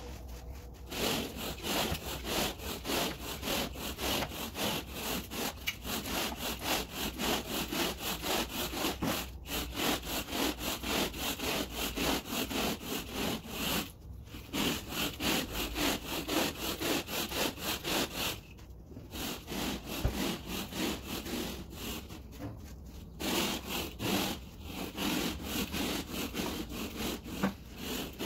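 Rhythmic back-and-forth scrubbing strokes across carpet pile, about three a second, with a few short pauses.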